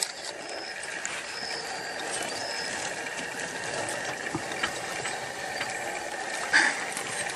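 Porcupine rattling its raised quills: a continuous clattering of many small clicks, with one short louder sound about six and a half seconds in.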